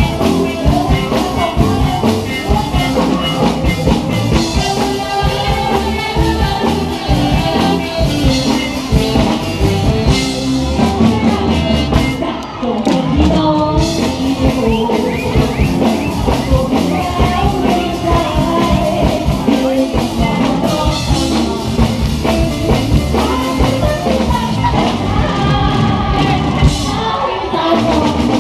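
Live band playing a rock-style song, with a singer over drum kit, bass and guitar and a steady beat.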